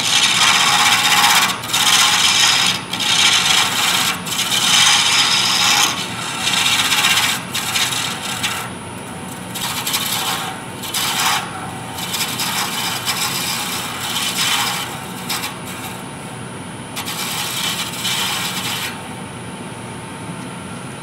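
Turning tool cutting a small wooden spindle on a running wood lathe, a rushing shaving sound in repeated strokes over the lathe's steady hum. The cuts come close together at first, then grow scattered and weaker, stopping a couple of seconds before the end.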